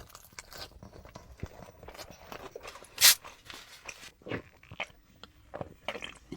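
Close-miked eating sounds: biting and chewing food, with wet mouth clicks and one loud, sharp crunch about three seconds in.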